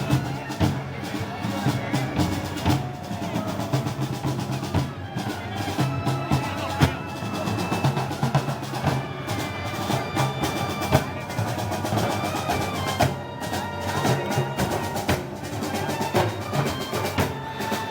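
Live festival band music: snare drum rolls and bass drum beats under sustained wind-instrument lines, at a steady, busy level.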